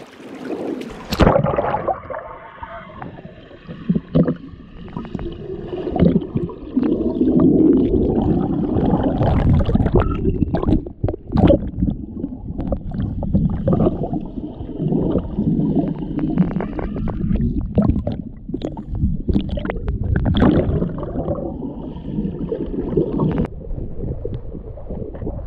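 Gurgling, sloshing water with repeated splashes, heard close and muffled as when the microphone is at or under the water's surface.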